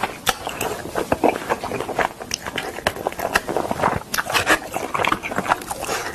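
Close-up mouth sounds of a person eating: repeated bites and chewing, with many irregular sharp clicks and wet smacks.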